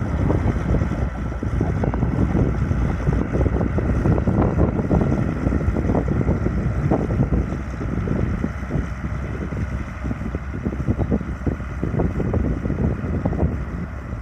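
Massey Ferguson 6170 tractor engine running steadily, with wind buffeting the microphone in uneven gusts.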